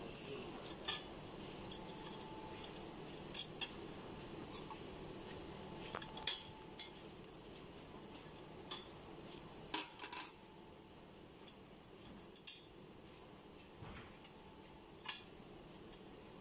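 Light metallic clinks and taps as a sheet-metal compressor cowl is fitted back on and handled with an Allen key: about ten short, sharp clicks at irregular intervals over a faint steady room hum.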